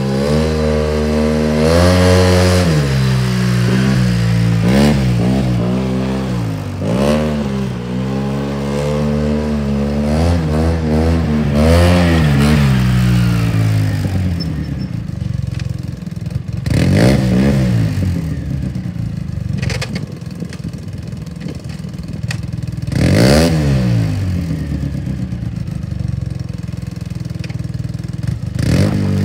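2008 Polaris RZR side-by-side's engine revving up and falling back again and again as it is driven on gravel. It then runs lower and more steadily, with two short rev-ups, the second near the end.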